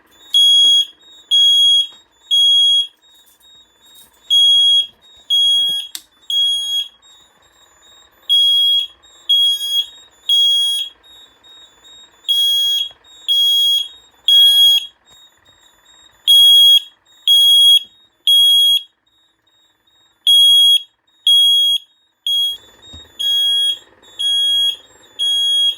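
Piezo sounder on a conventional duct smoke detector's key-switch test station, beeping high and loud in groups of three with a short pause between groups, over and over. It is sounding because the duct detector has been set off with its test button and its monitor module has activated.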